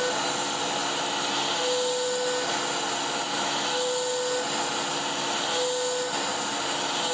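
CNC router's 11 hp Hiteco spindle running a three-flute bit at 10,000 rpm, milling an adaptive pocket, over a steady hiss. A clear tone comes in for under a second about every two seconds as the bit loops through its passes.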